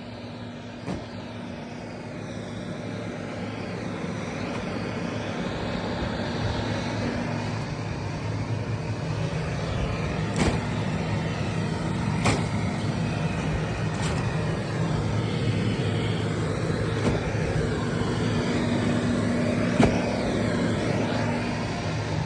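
Vacuum motor running steadily, sucking the air out from behind a vinyl pool liner to pull it against the pool wall; it grows gradually louder, with a few light knocks.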